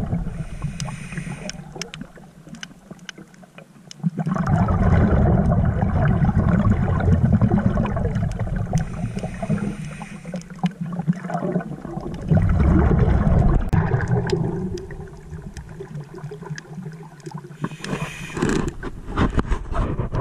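Underwater sound of a scuba diver breathing through a regulator: bubbling exhalations that swell and fade every few seconds, with short hisses of inhaled air between them, heard through the camera housing.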